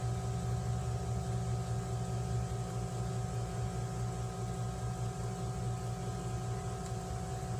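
Steady room hum with a few fixed tones, like a small motor or appliance running; it holds unchanged throughout.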